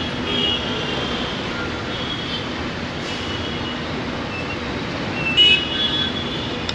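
Steady street traffic noise from passing vehicles, with a brief louder high-pitched sound about five and a half seconds in.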